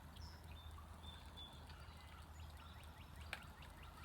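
Faint outdoor ambience: a steady low hum with a few brief, high bird chirps, and a single sharp click a little over three seconds in.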